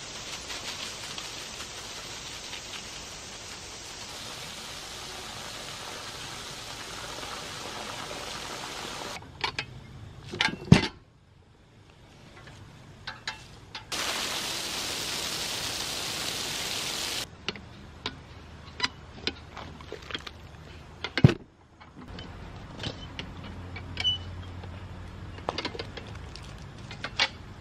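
Garden hose spray nozzle jetting water onto bare dirt and debris: a steady hiss that runs for about nine seconds, stops, then comes back for about three seconds. Scattered sharp clicks and knocks fall between and after the spraying.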